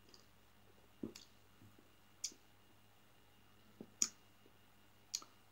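Faint lip smacks and mouth clicks from a person sipping and tasting a drink, about six short clicks spread out with pauses between them.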